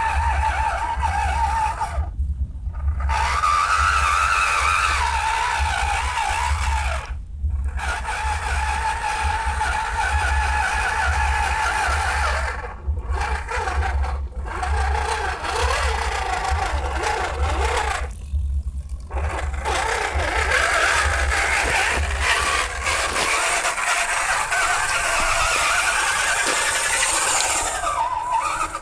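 RC4WD Trail Finder 2 scale crawler's electric motor and gearbox whining. The whine wavers in pitch with the throttle and cuts out briefly several times as the truck stops and starts. Under it runs a low rumble.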